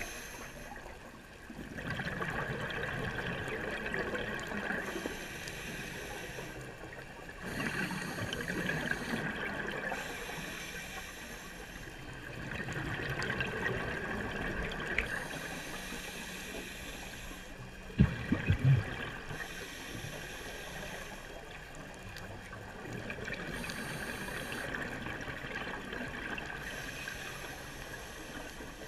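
Scuba diver breathing underwater through a regulator: bubbly exhalations swell up roughly every five seconds, with a thin hiss between them. A few sharp knocks come about two-thirds of the way through.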